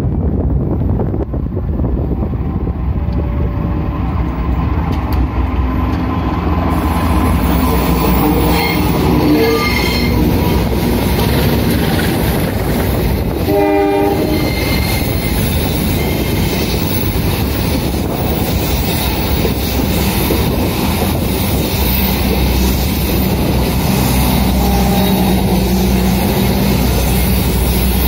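Diesel-hauled passenger train approaching and running past close by. The locomotive gives one short horn blast about halfway through. Its coaches then roll past on the track with wheel noise and some squeal.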